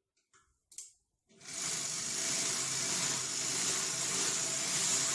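A few light clicks, then an overlock (serger) sewing machine starts about a second in and runs steadily at speed, driven by its newly fitted motor and foot pedal: a test run showing the new pedal and motor work.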